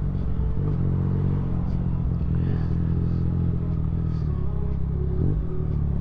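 Motorcycle engine running under steady throttle while riding, with a brief drop and change in engine note about five seconds in.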